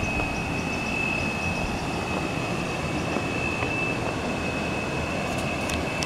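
Steady rushing of river water over rocks from a small cascade, heavy in the low end, with a thin, steady high-pitched whine running through it.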